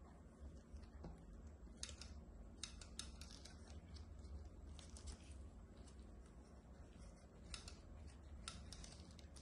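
Metal snips and scissors cutting through a thick, discoloured toenail: quiet, sharp snips and crackles in several short clusters, over a low steady hum.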